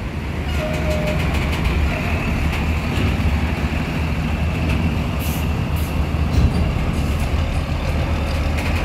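Intercity coach's diesel engine running as the bus creeps up a steel ramp onto a ferry's car deck, steady and low.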